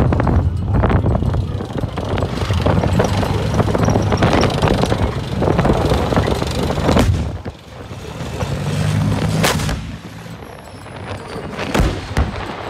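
A Leopard 2 main battle tank driving past on a dirt track: its diesel engine runs with a heavy low rumble under the clatter of its tracks. The sound dips about two-thirds of the way through and then swells again, and a few sharp cracks stand out in the second half.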